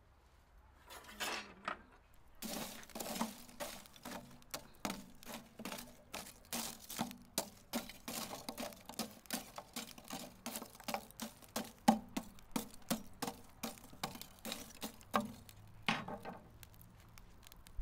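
Burnt-down charcoal embers in a metal mangal grill being raked and spread with a metal tool: an irregular run of crunching and glassy clinking of the coals, several a second.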